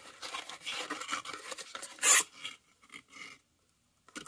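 Paperboard box rustling and scraping as a spin-on oil filter is worked out of it, with one louder scrape about two seconds in, then nearly quiet.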